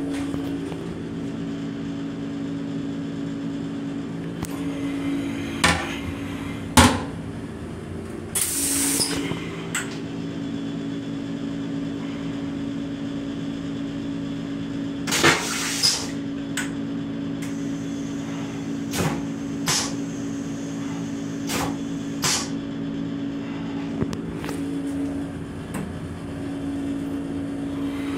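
Steady hum of a Metro-North Comet IV rail car heard in its small restroom, with scattered clicks and knocks and two short hissing bursts, about nine and fifteen seconds in.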